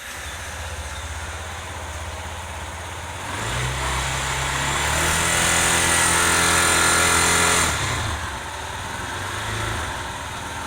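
Yamaha Fazer 250's single-cylinder engine idling, then revved up about three seconds in and held high for a few seconds before dropping back to idle. A smaller rise and fall follows near the end. The owner is checking a noise that shows up around 5,000 rpm, which a Yamaha mechanic called normal for all Fazer and Lander 250 engines, put down to the cylinder head and piston material.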